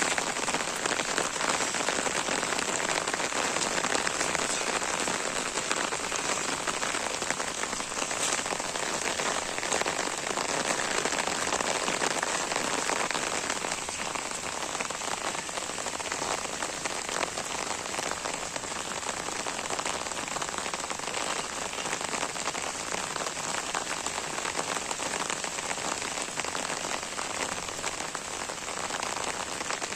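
Steady heavy rain falling, a dense patter of countless drops, easing slightly about halfway through.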